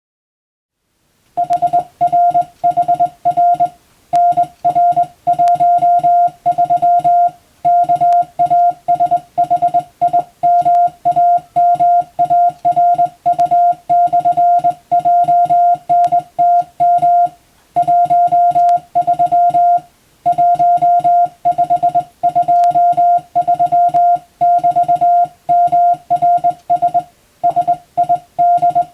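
Morse code sent as a single steady mid-pitched tone keyed on and off in short and long elements, grouped into characters and words with brief pauses, starting about a second in.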